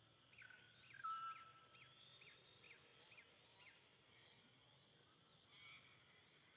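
Faint birdsong in the background: a held whistled note about a second in and a run of short rising call notes, about two a second, for the first few seconds, over a quiet outdoor hiss.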